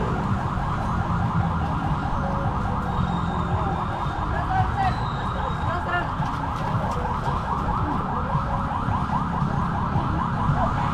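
Electronic siren in a fast yelp, its pitch sweeping over and over several times a second, over a steady low rumble.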